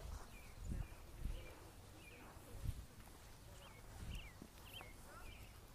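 Quiet open-air ambience: short high bird chirps repeat every half second or so, over soft irregular low thuds about once a second.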